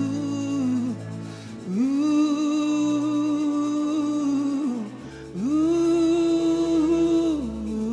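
Slow praise and worship music: a melody line held in long notes, each about three seconds, gliding up at the start and falling away at the end, over steady accompaniment. A deeper bass comes in about five seconds in.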